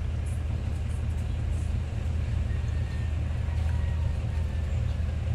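An engine idling steadily: a low, even hum with no change in speed.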